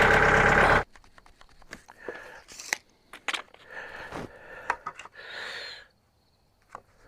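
Sawmill's gasoline engine running loudly, then cutting off abruptly under a second in. Scattered faint clicks, knocks and rustles follow.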